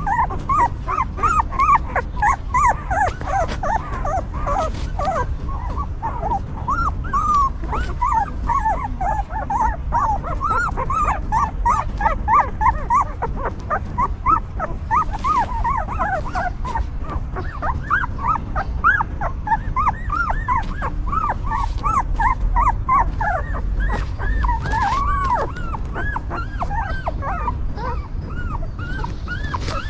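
Several newborn puppies whimpering and whining at once: a continuous chorus of short, high, rising-and-falling cries that overlap one another.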